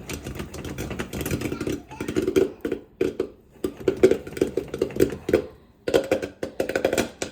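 Popcorn kernels popping and rattling inside a running popcorn maker: a dense, irregular patter of sharp pops over the machine's steady running noise, easing off briefly a few times.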